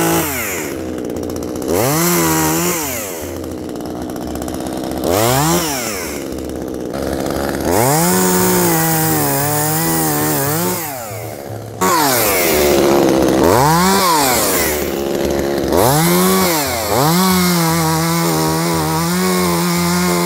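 ECHO CS-2511TES top-handle chainsaw's small two-stroke engine revving: it climbs from idle to full throttle and drops back about six times, and is held at high revs for a few seconds twice.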